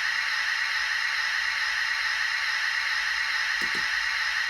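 Sanding sound effect from a Hornby Class 56 model locomotive's DCC sound decoder: a steady hiss of sand being blown onto the rails, played through the model's small onboard speaker.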